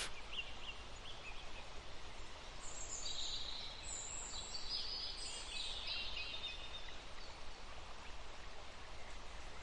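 Low steady background noise with faint, high-pitched bird chirps through the middle stretch.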